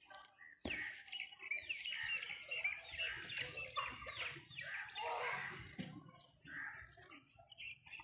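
Many birds chirping and calling over one another in a busy chatter, thinning out to scattered calls after about five seconds.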